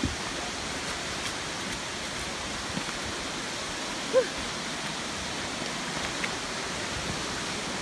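Steady rushing hiss of a waterfall, with one short voice-like sound about four seconds in.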